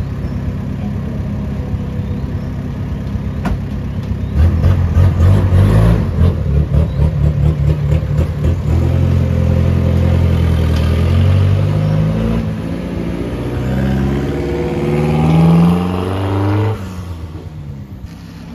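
Pickup truck engine idling, then revving as it pulls away about four seconds in, climbing in pitch through the gears and fading as the truck drives off near the end.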